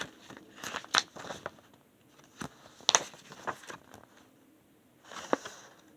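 CD booklet and plastic jewel case being handled: paper rustling and a series of sharp clicks, in clusters about a second in, around three seconds and near the end.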